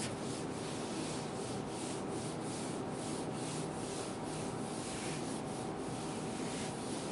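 Whiteboard eraser wiping marker writing off the board in quick back-and-forth strokes, about three a second.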